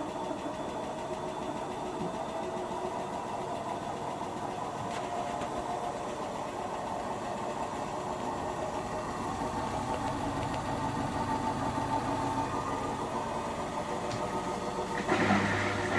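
Indesit washing machine drum spinning up in the build-up to its maximum spin, the motor whine steady and slowly growing louder. About a second before the end a louder surge starts, with a low hum added.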